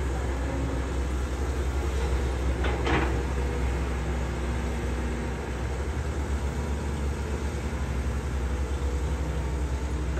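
Caterpillar 320D hydraulic excavator's diesel engine running under load as it digs, a steady low rumble. A brief louder rasping burst about three seconds in.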